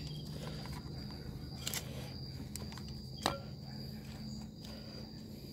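A few sharp clicks and handling noises of hands firming potting soil into a small plastic plant pot, over a steady high insect trill like a cricket.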